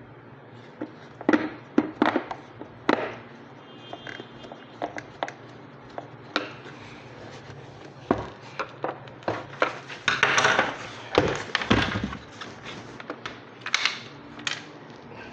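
Irregular clicks, knocks and rattles of hard plastic parts being handled and fitted together, with a longer scraping, rustling stretch about ten seconds in: a vacuum cleaner's casing being reassembled.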